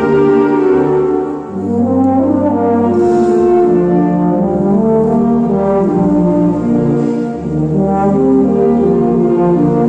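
Solo euphonium playing a melodic line over a wind band accompaniment, with clarinets. The phrases break briefly about one and a half seconds in and again after seven seconds.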